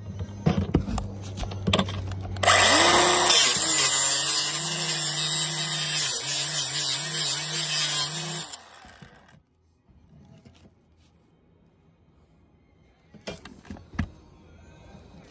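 Compact cordless circular saw starts with a rising whine and cuts through a metal rail for about six seconds, with a loud, hissing, grinding cut, then spins down. A few handling clicks and knocks come before it and near the end.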